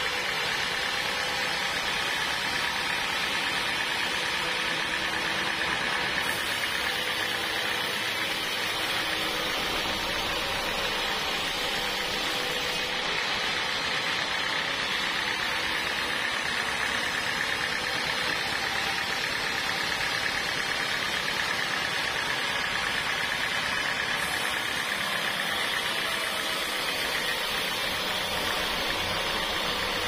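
Band sawmill running, its blade cutting lengthwise through a bayur (wadang) log: a steady, even machine noise with no breaks.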